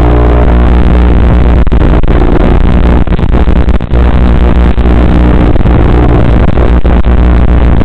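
Loud, steady electronic buzz with a low hum. It is the noise on the audio channel of an analog FPV video link recorded by the goggles' DVR, with no microphone behind it, and it drops out briefly a few times, most deeply just before four seconds in.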